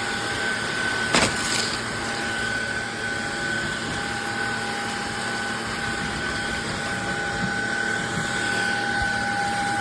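Cordless stick vacuum cleaner running steadily, its motor giving a constant whine over a rushing air noise, with one short knock about a second in.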